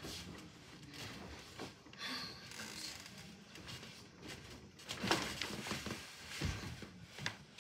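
Irregular rustling and shuffling of a person moving about and handling things, with a few sharper knocks, the loudest about five seconds in.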